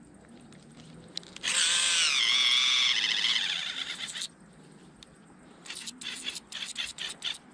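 Battery-powered electric callus remover with fishing line wound on its roller: its motor whines for about three seconds, the pitch sagging under the load, then cuts out, which the angler puts down to flat batteries. A run of short clicks follows near the end.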